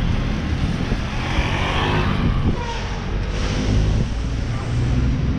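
Street traffic: a steady low engine hum from vehicles close by, with a vehicle passing about two seconds in.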